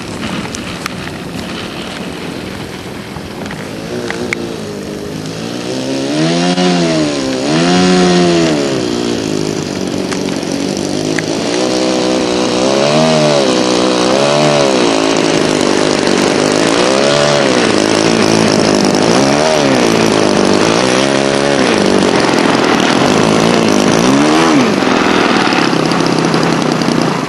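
Small four-stroke model-aircraft engine (an SC .70) running on a radio-controlled Citabria, its note rising and falling in pitch again and again, each swell lasting a second or two.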